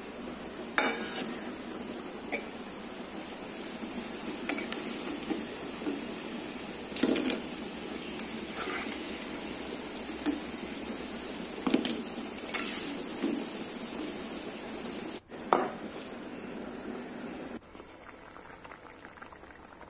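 Lentil fritters sizzling steadily in hot oil, with sharp clinks of a steel spatula against the frying pan and a steel plate as they are turned and lifted out.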